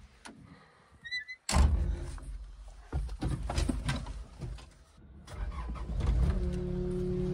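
Diesel engine of a 2019 Kubota KX080-4 excavator coming in suddenly about a second and a half in, running unevenly with surges. It settles into a steady run from about six seconds in.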